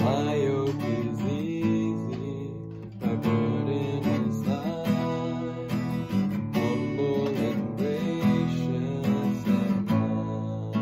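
Acoustic guitar strumming chords, with a fresh strum every second or so and each chord left to ring.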